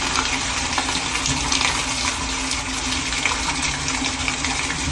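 Toilet refilling after a flush: a steady rush of running water.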